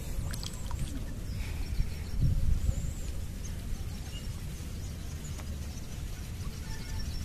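Outdoor ambience: small birds chirping in short, high calls over a low, uneven rumble that swells about two seconds in.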